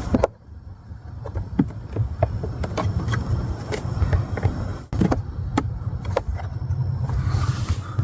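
Scattered plastic clicks and knocks as the cabin air filter and its cover are pushed into place behind the glovebox of a Mazda CX-30, over a steady low rumble.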